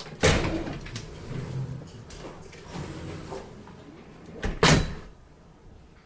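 A cat's furry body pressing and rubbing against the camera's microphone: rustling, with two loud thumps, one just after the start and another about four and a half seconds in.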